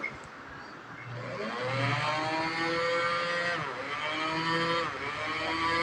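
Small electric hand blender's motor running after its repair: a high whine that rises to speed about a second in, its pitch dropping and picking up again twice.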